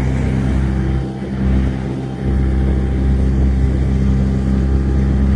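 Outboard motor of an inflatable dinghy running under way with a steady low engine note. The note dips briefly about a second in, then picks back up.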